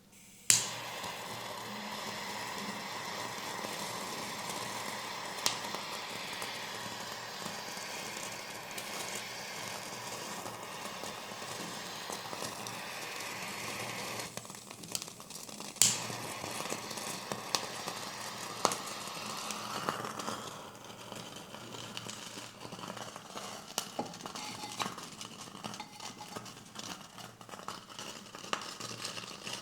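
Fingers rubbing and working through hair on a scalp close to the microphone: a steady crackling rustle, broken by a few sharp clicks.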